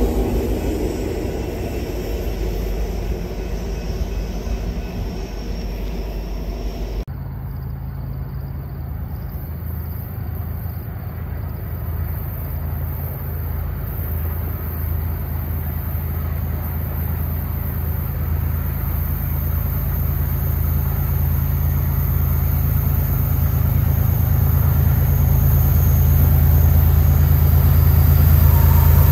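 A freight train passing for the first seven seconds, then an abrupt cut to the steady low running of GE Evolution-series diesel locomotives (a BNSF ES44AC leading two ES44DCs), growing louder as they approach.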